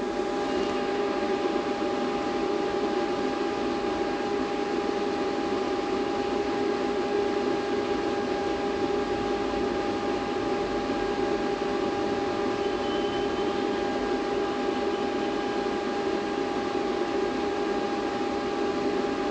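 Cooling fan of a battery discharger running steadily while it draws down a lithium battery pack, an even rushing noise with a constant whine.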